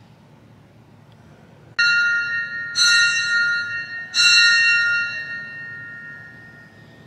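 A bell struck three times, about a second apart and then a little longer. Each stroke rings out high and clear and fades slowly, the last dying away over a couple of seconds.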